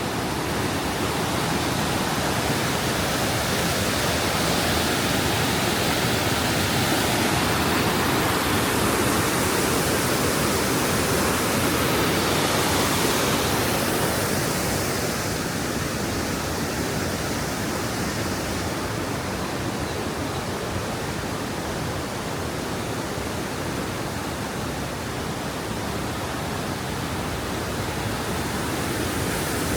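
Düden Waterfalls pouring, a steady, dense rush of falling water.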